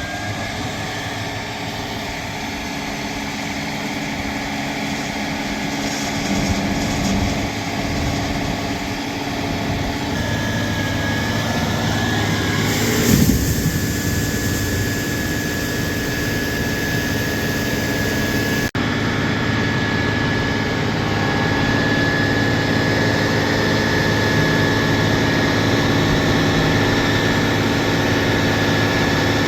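Diesel engine idling steadily, with a thin steady whine joining it about a third of the way in.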